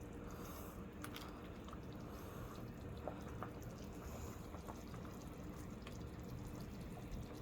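Pot of chicken noodle soup boiling: faint bubbling with scattered small pops over a steady low hum.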